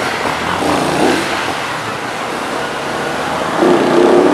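Road traffic on a flooded street. Near the end, a vehicle's engine grows louder and rises slowly in pitch as it accelerates.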